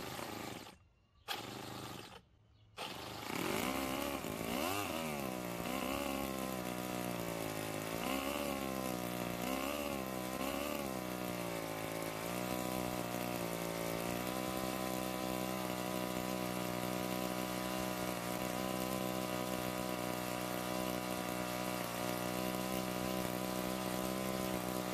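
Semto ST-NF2 7cc two-cylinder four-stroke nitro model engine running. It cuts out twice briefly near the start, then revs up and down about five times before holding a steady high speed at full throttle for the last ten seconds or so.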